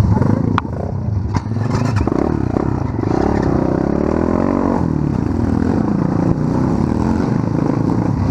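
Small single-cylinder pit bike and ATV engines idling and being revved up and down, still cold and not fully warmed up, with a few sharp knocks in the first two seconds.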